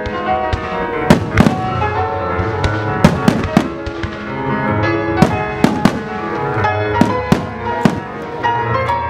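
Aerial firework shells bursting, a dozen or so sharp bangs in quick clusters, over classical music played in time with the display.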